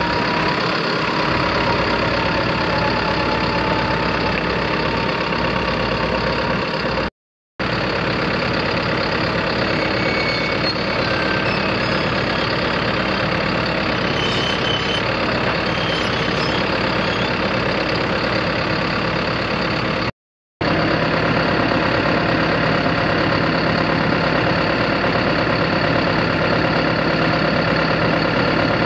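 John Deere 6125R tractor's four-cylinder diesel (4045HL495) running steadily at an even pitch. The sound drops out completely twice for a split second, once about a third of the way in and again about two-thirds in.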